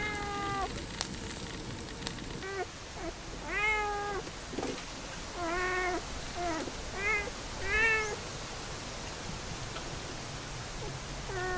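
A cat meowing over and over: about seven short meows, each rising and falling in pitch, through the first eight seconds, then a pause and one more near the end.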